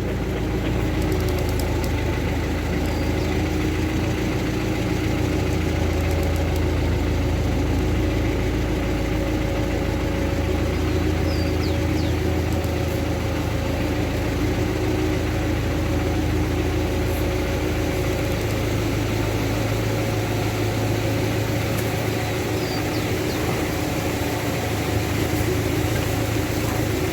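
A vehicle engine running steadily at low speed.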